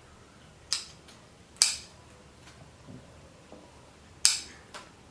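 Pruning shears snipping through a branch of a fig bonsai (ficus retusa): three sharp snips, two about a second apart and a third about three seconds later.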